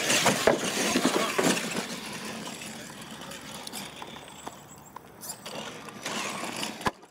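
Radio-controlled monster trucks driving over dirt and wooden jump ramps, with clattering knocks as they hit and land the jumps. Loudest at first, then fading, and cut off abruptly just before the end.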